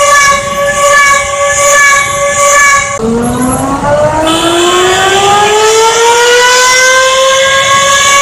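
Emergency alert siren: a steady chord of several tones breaks off about three seconds in, then the siren winds up, its pitch rising for about four seconds before holding steady.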